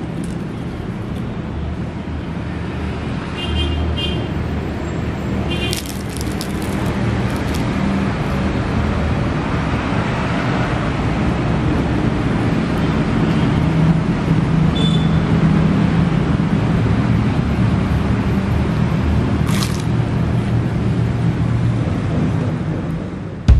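Steady background rumble and hiss like road traffic, with a few short crackles.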